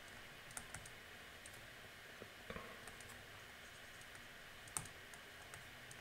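Faint, scattered taps and clicks of a stylus writing on a tablet screen, about eight in all, the most distinct near the end, over a quiet steady hiss.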